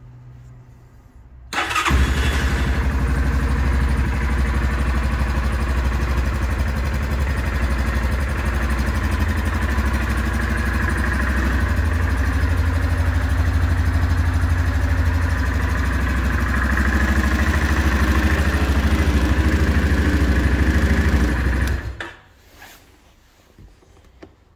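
Yamaha ATV engine started on the electric start and catching at once, then idling steadily for about twenty seconds before it is switched off and stops abruptly. It starts normally with its Datatool Stealth immobiliser's Rider ID fob in range.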